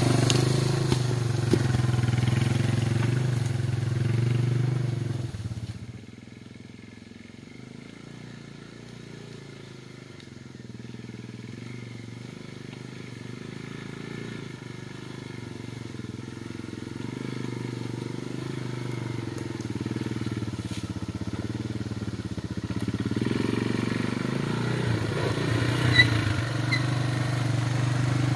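Yamaha Moto-4 250 ATV engine running close up while it tows a loaded log trailer. About six seconds in it cuts to the same engine heard far off, growing steadily louder as the ATV approaches, with a sharp clack near the end.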